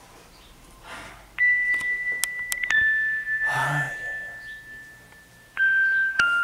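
Eerie electronic sound effect from a horror soundtrack: a steady, pure high tone sets in and steps down in pitch three times, each drop starting abruptly with a click, with a breathy rush of noise in the middle.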